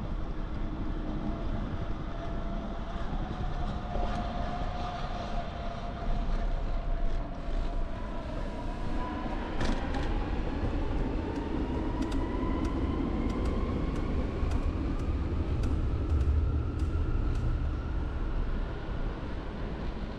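Electric train pulling away, its motors whining in several tones that rise steadily in pitch. A low rumble swells in the second half, along with a run of sharp clicks.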